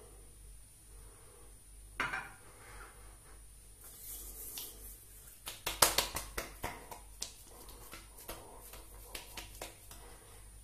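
Aftershave being slapped onto the face: a click at a small glass bottle about two seconds in, then hands rubbing, then a quick burst of sharp slaps on the cheeks that trails off into lighter pats.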